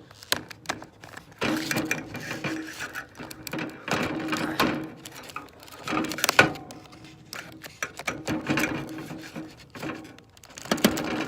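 Scissors cutting into product packaging: an uneven run of snips, crackles and scrapes with short pauses between them.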